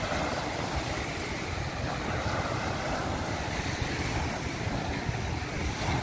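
Small waves washing up on a sandy beach, with wind rumbling on the microphone.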